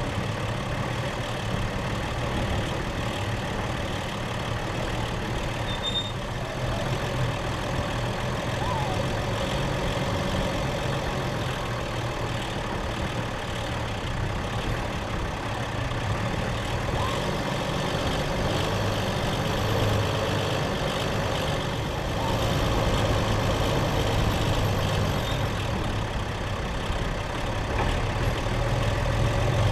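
Four-wheel-drive vehicle's engine running at low speed as it drives along a rough sandy track, with a steady low drone and road noise.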